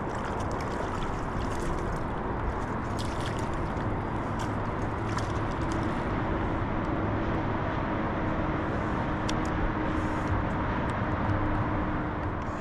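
Lake water sloshing and lapping against a kayak hull, with splashing and dripping from a landing net as a fish is netted and lifted aboard, over steady wind rumble on the microphone. The splashes are most frequent in the first half.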